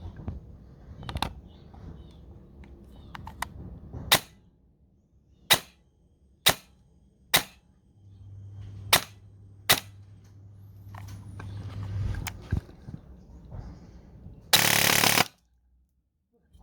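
Electric airsoft rifle (AEG) with a brushless motor and 13:1 gearbox firing 0.2 g BBs: six sharp single shots spaced about a second apart, then a short full-auto burst of under a second near the end.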